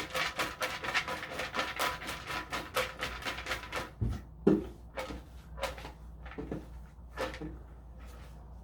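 Clattering and rattling as raffle tickets are mixed and one is drawn: a fast run of clicks for about four seconds, then a few separate knocks that thin out toward the end.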